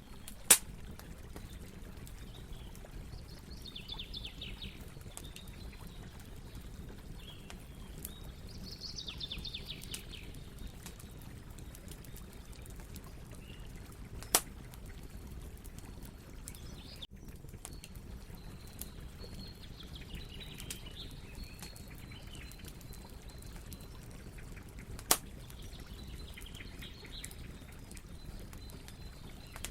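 Campfire burning with a low steady rumble, broken by three sharp pops of burning wood, about fourteen and eleven seconds apart. Short bursts of chirping come and go in the background.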